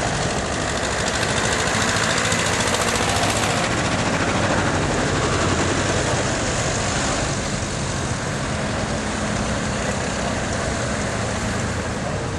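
Vintage tractors and classic cars passing slowly at close range, their engines running in a steady mix, with a deeper low engine note coming up in the second half.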